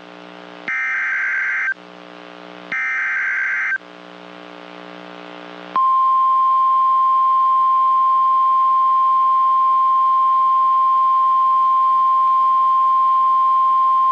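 NOAA Weather Radio emergency alert signal. First come two SAME header data bursts, buzzing digital squawks about a second long each and a second apart. Then, after a short pause of faint hiss, the steady 1050 Hz warning alarm tone starts about six seconds in and holds; it marks the alert as a warning.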